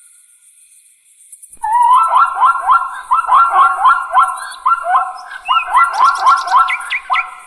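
An animal giving a rapid series of short rising calls, about three or four a second, in three runs with brief breaks, over a faint, fast, high-pitched pulsing.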